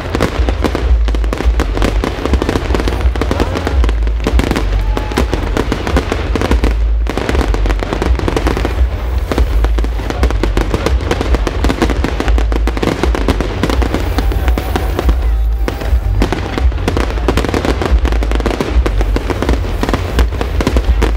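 Aerial fireworks going off in a dense, continuous barrage: shell bursts follow one another rapidly and overlap, with crackling between them and a heavy low rumble.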